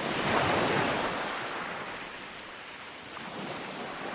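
Steady rushing noise of wind on the microphone and sea water, loudest in the first second and then easing.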